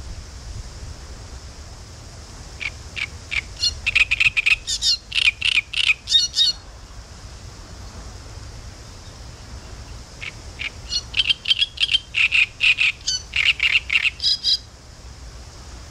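Great reed warbler singing: two phrases of rapid, repeated notes about four seconds each, with a pause of about four seconds between them.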